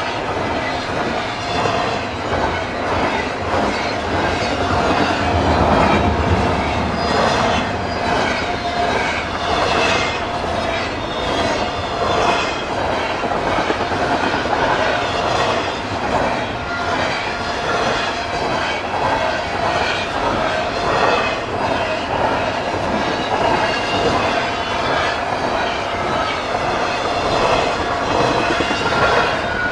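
Double-stack intermodal freight train rolling past close by: wheels running on the rails with a steady rumble, repeated clacking over rail joints, and a steady ringing tone from the wheels.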